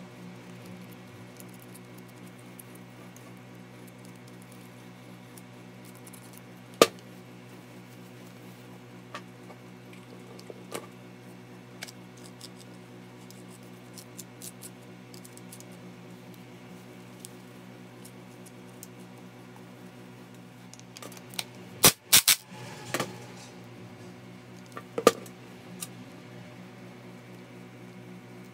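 Clicks and knocks of a Makita M693D 12V impact driver's plastic housing and metal hammer case being handled and fitted together during reassembly. There is one sharp click about seven seconds in, a few light ticks after it, and a quick cluster of loud knocks about three-quarters of the way through, over a steady low hum.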